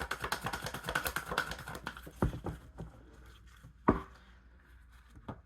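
A quick run of light clicks or taps, like typing, for about two and a half seconds, then three single, louder taps a second or so apart.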